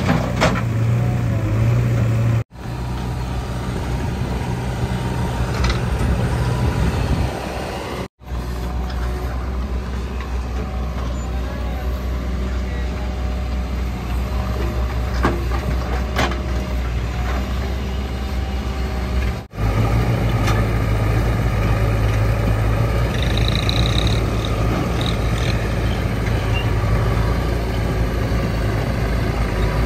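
A JCB 3DX backhoe loader's diesel engine runs steadily under load as it digs and dumps soil, with tractor engines running alongside. The sound breaks off for an instant three times, at cuts in the footage.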